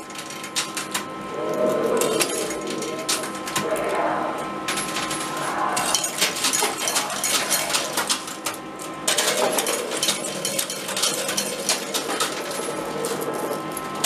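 Metal coins clattering and clinking in a coin pusher machine, a dense run of rattles that grows busier about a third of the way in, over a faint steady electronic tone.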